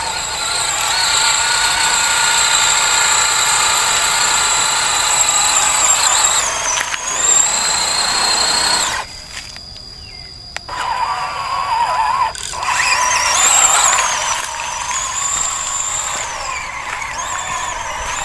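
MN128 scale RC off-road car driving, its electric motor and gears whining at a high pitch that rises and falls with the throttle. About nine seconds in the whine drops away for a second or two, then picks up again.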